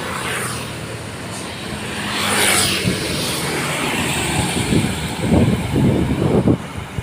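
A heavy truck driving close past, its engine and tyre noise swelling to a peak about two to three seconds in, followed by a few irregular low rumbling gusts.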